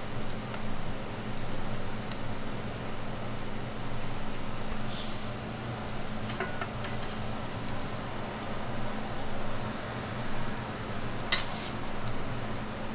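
Toast fillings sizzling on a flat griddle over a steady low hum, with a metal spatula scraping and clicking against the griddle a few times, the sharpest click about eleven seconds in.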